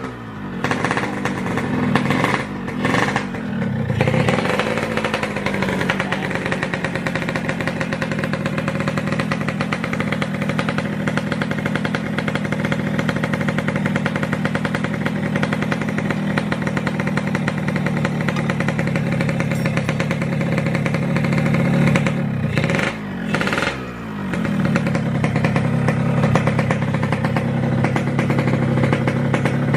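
Yamaha RX-King 135cc two-stroke single-cylinder motorcycle engine running, revved in a few quick throttle blips at the start, then holding steady, with another couple of revs about 22 seconds in before settling again.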